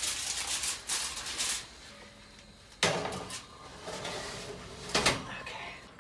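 Sheet of aluminium foil crinkling as it is tented over a roasting turkey for about the first second and a half, then the metal sheet pan clattering onto the oven rack about three seconds in, with another knock of pan or rack near the end.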